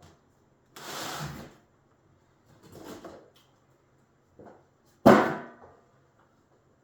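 Handling of a welding positioner's crank and spring-loaded ball handle: two soft scraping rustles, a small tap, then a sharp metallic clunk about five seconds in that rings briefly.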